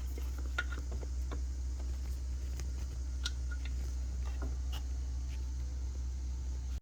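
Scattered, irregular light clicks and taps of hand tools and metal parts being handled, over a steady low hum.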